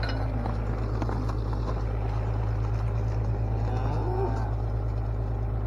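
An engine idling with a steady low hum, with cattle lowing over it: a short call at the start and a longer bellow about four seconds in.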